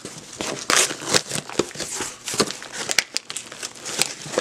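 Packaging crinkling and rustling in irregular sharp crackles as a cardboard shipping box is torn open and unpacked by hand.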